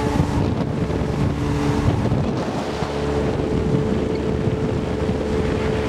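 A boat's motor running at a steady hum, with wind buffeting the microphone.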